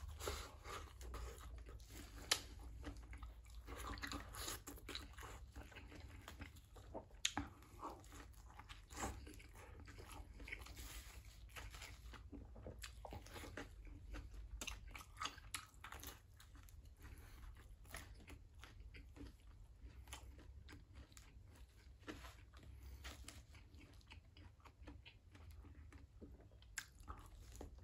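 Faint close-up chewing and biting of pizza, with irregular small crunches and clicks, a few of them louder.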